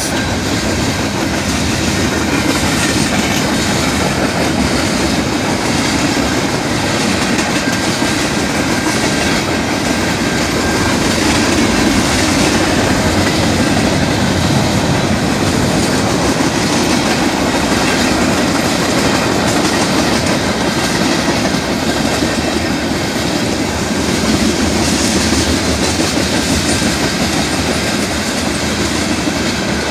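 A train's cars rolling steadily past on the track, a continuous unbroken noise of steel wheels on the rails.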